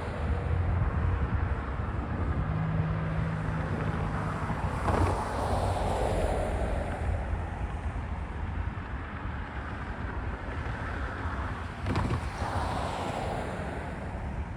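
Union Pacific intermodal stack train rolling past: a steady, loud rumble of wheels on rail, with a brief low engine-like tone a couple of seconds in and sharp clatters about five and twelve seconds in.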